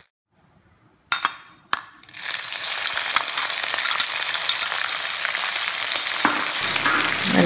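Green chillies and curry leaves sizzling in hot coconut oil in a cast-iron cheenachatti (Kerala iron wok) as they are stirred with a spatula. After a brief silence come two sharp clicks, then a steady crackling sizzle from about two seconds in.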